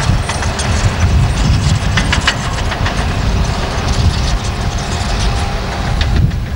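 Tracked earthmoving machines working: a diesel rumble with irregular metallic clanking and squeaking of steel crawler tracks. The clanking is busiest in the first three seconds and dies away near the end.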